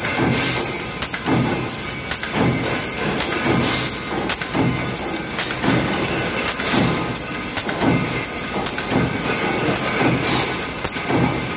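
Mechanical power press stamping with a progressive die in a steady rhythm, about one stroke a second, with the pneumatic strip feeder working between strokes, over a steady machine hum.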